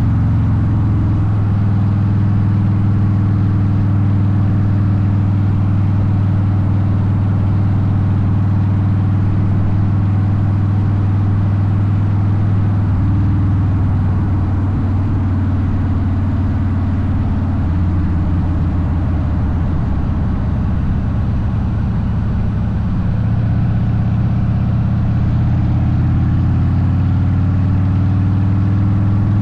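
Harley-Davidson Softail Deuce V-twin running through Vance & Hines exhaust while riding, loud and steady, its engine note shifting a few times as the rider changes speed.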